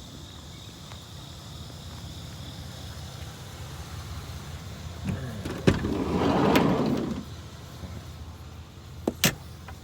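Idling vehicle engine, with a loud clatter of scrap being handled about halfway through and two sharp knocks of a vehicle door being shut near the end.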